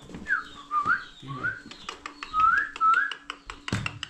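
Someone whistling a wavering tune in short rising and falling phrases. Under it come regular soft spurts of a cow being milked by hand into a jug, a few a second.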